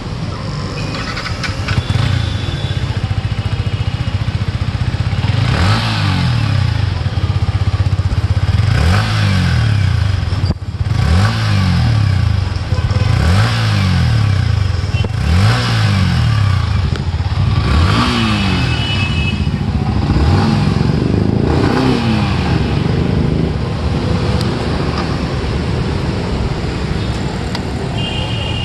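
Yamaha MT-15's 155 cc single-cylinder engine running through its stock exhaust: idling, then revved in about eight quick throttle blips, each rising and falling in pitch, before settling back to a steady idle.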